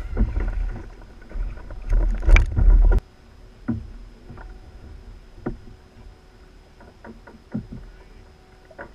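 Scattered knocks and thumps on a plastic fishing kayak while a gaffed yellowfin tuna is brought aboard. A louder low rumble over the first three seconds stops abruptly.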